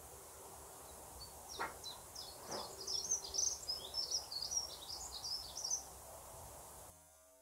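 A small songbird twittering outdoors, a quick run of short high chirps lasting about four seconds, over steady background noise. Two soft knocks about a second apart come as the song begins, and all the sound cuts off abruptly near the end.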